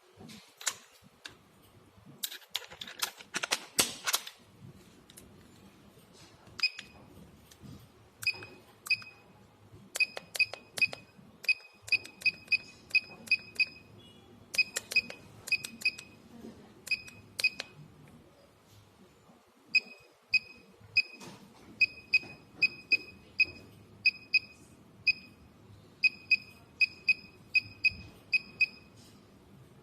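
Electric chiropractic adjusting gun firing single impulses: each is a sharp click with a brief high tone, coming irregularly one to three a second in runs with short pauses. About two seconds in there is a quick flurry of louder clicks and rattles.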